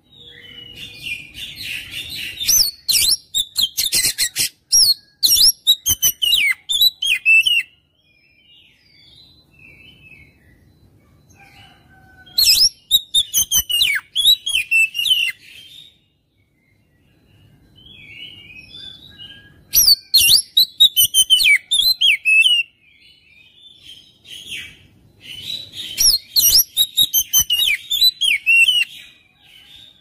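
Oriental magpie-robin (kacer) singing in four loud bursts of rapid, sharp whistled notes, with short quieter pauses between.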